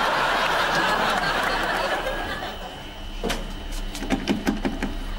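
Studio audience laughing, dying away about two and a half seconds in. Then a sharp click and a quick run of light knocks and clicks near the end.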